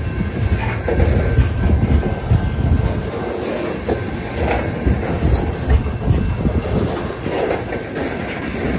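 Covered hopper cars of a BNSF grain train rolling past close by: a steady heavy rumble with repeated clicks and knocks as the wheels pass over rail joints.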